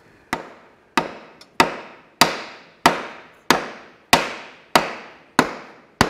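Ten hammer blows on metal in a steady rhythm, about one every 0.6 s, each ringing briefly: knocking a tractor's rear axle final drive housing loose from the transmission case.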